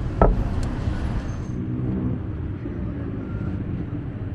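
Street ambience: a steady rumble of road traffic, with one sharp knock about a quarter second in.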